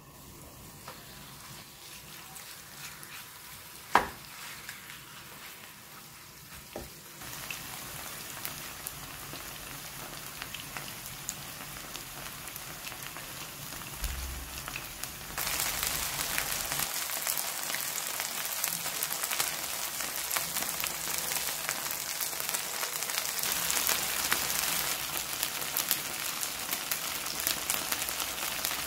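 Korean chive pancake batter with squid and mussels sizzling in oil in a frying pan, a steady crackling hiss that grows louder in two steps. A sharp click about four seconds in.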